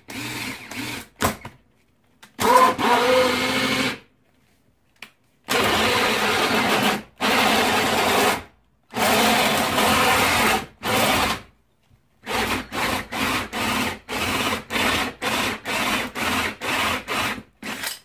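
Cordless drill driving a wood hole saw through a carpeted wooden boat deck, run in bursts. First come several runs of one to two seconds, then short trigger pulses about two a second over the last few seconds.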